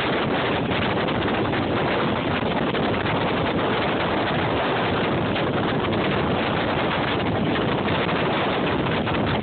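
Strong wind buffeting the microphone in a steady, loud rush, aboard a fishing boat on choppy water.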